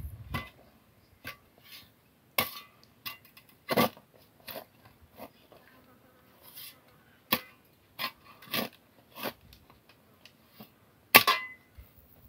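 Scattered crunches and scrapes of outdoor work on dry, stony earth: a spade cutting and tossing soil, and feet stepping on dry ground. They come at irregular intervals with near-quiet between, the loudest about a second before the end.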